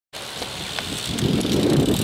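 BMX bike tyres rolling on asphalt, the rumble growing louder about a second in as the bike nears, with a few faint clicks.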